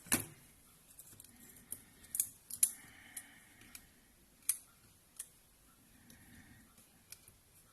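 Scattered sharp clicks and light taps from small parts and tools being handled on an iPad mini 2 under repair, the loudest right at the start; about half a dozen in all.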